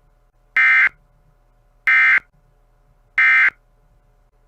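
Emergency Alert System end-of-message code: three identical short digital data bursts, about 1.3 seconds apart, the "NNNN" signal that closes an alert broadcast.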